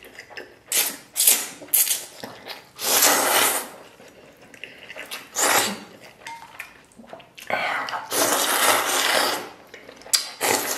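A person slurping noodles from a bowl in airy, noisy gulps: a few short slurps in the first two seconds, then longer drawn-out slurps about three seconds in and again around eight seconds in.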